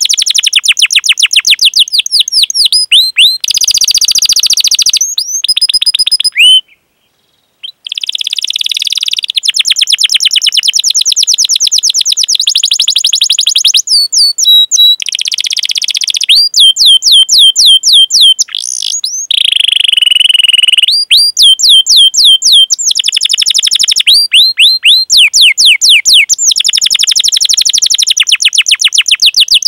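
Domestic canary singing a long song of rapid repeated chirp notes ("cuit cuit") and rolling trills, each phrase a fast run of the same high note before switching to another, with a brief pause about seven seconds in.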